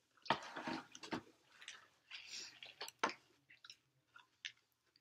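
Eating noises close to the microphone: fried chicken being picked out of a cardboard box, with rustling and chewing in crackly bursts over the first two and a half seconds, then a sharp click about three seconds in and a few small ticks.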